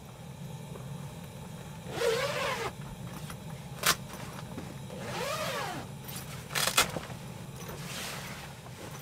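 Tent zipper drawn along a fabric door panel twice, each pull sweeping up and then down in pitch, with a sharp click between the pulls and a louder double click after the second, over a steady low hum.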